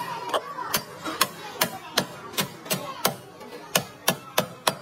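Knife chopping on a cutting board: about a dozen sharp, slightly irregular strikes, two to three a second.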